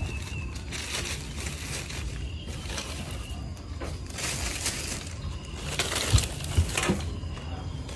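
Plastic bags rustling and crinkling, along with leafy rambutan bunches being handled, in several spells that grow busier in the second half. Faint bird chirps sound now and then behind.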